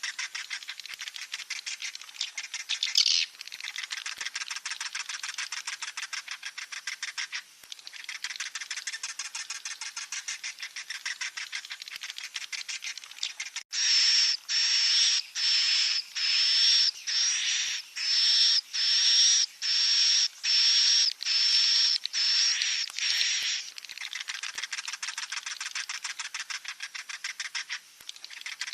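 Swiftlet chicks calling: a dense, rapid high chittering, broken midway by about a dozen louder, longer high calls roughly one a second, before the fast chittering returns.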